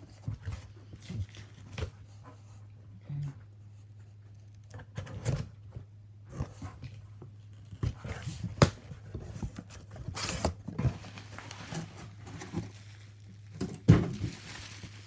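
Packaging being handled and unwrapped: scattered crinkles, rips and small knocks, some louder than others, over a steady low electrical hum.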